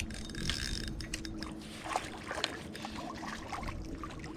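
Water splashing and trickling in short irregular bursts as a hooked crappie is played to the surface, over a faint steady low hum.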